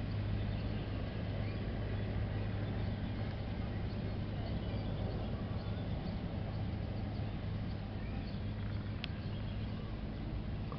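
Steady low hum under an even background hiss, with one sharp click about nine seconds in.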